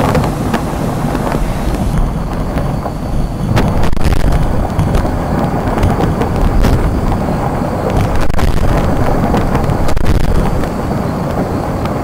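Merapi volcano's glowing rockfalls and lava avalanches making a steady deep rumble with scattered sharp cracks, swelling louder a few times.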